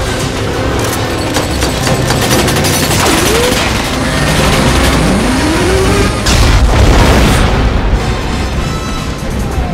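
Action-film soundtrack: music layered with booms and bursts of gunfire, with a loud blast about six seconds in that lasts around a second.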